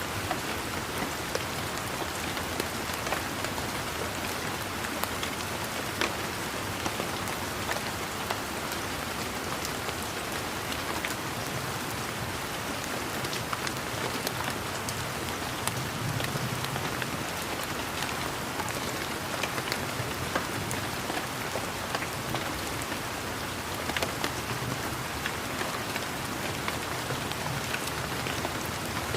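Steady rain falling on leaves: a constant hiss with many single drops ticking sharply through it. A faint low rumble swells briefly about halfway through.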